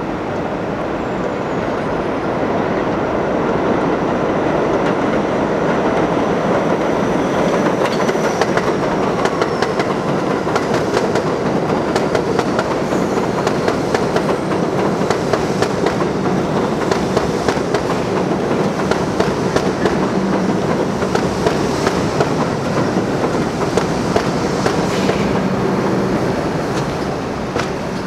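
New York City Subway 1 train of R62A cars passing on elevated steel track, wheels clattering over the rail joints in a dense run of clicks. It grows louder over the first few seconds, holds steady, and fades near the end as the train moves away.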